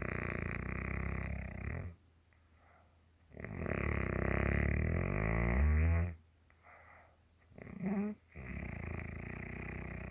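A woman snoring in her sleep: three long snores, each about two to three seconds, separated by quiet breaths. Just before the third comes a short snort that rises in pitch.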